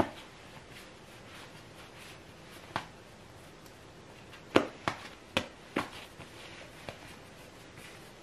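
Light knocks and taps of hands against a wooden tabletop while rolling bread dough around a sausage: a few scattered sharp clicks, with a quick cluster of four about halfway through.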